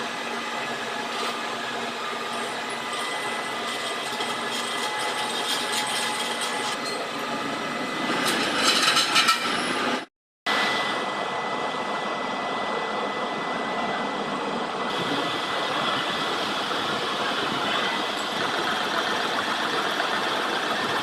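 Steady running of a metalworking machine tool, with a louder stretch of clatter about eight to nine and a half seconds in. The sound breaks off for a split second about ten seconds in, then the machine noise carries on.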